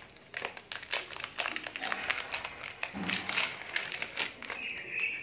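Crinkling and crackling of a Parle Krackjack biscuit packet's plastic wrapper being handled and pulled open by hand: a quick, irregular run of sharp crackles.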